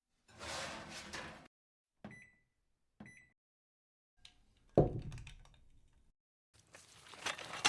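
A run of short sound-effect samples cut apart by dead silence: about a second of hiss-like noise, two short electronic beeps about a second apart, a heavy thud that dies away, then a clatter of clicks.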